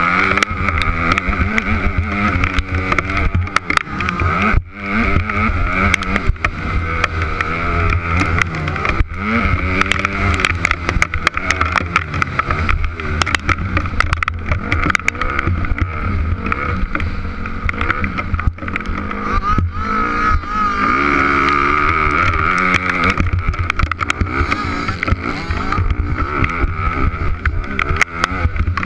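Motocross dirt bike engine revving hard, its pitch rising and falling again and again as the rider accelerates and shifts, under heavy wind buffeting on the helmet-mounted microphone.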